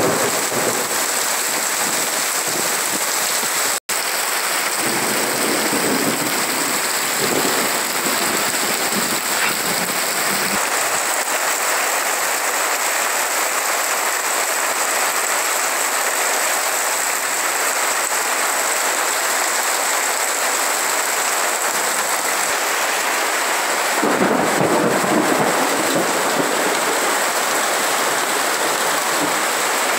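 Heavy rain pouring steadily onto trees and a roof, with water streaming off the eaves. The sound cuts out for an instant about four seconds in, and a deeper rumble comes in about three-quarters of the way through.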